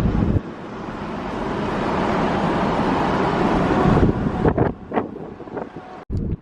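A vehicle on the move with wind rushing over the microphone, the rush swelling slowly over a few seconds, then a few short knocks before the sound cuts off abruptly near the end.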